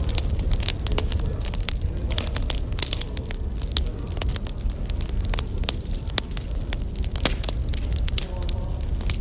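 Wood fire crackling: firewood burning with a dense, irregular run of pops and snaps over a low rumble of flame.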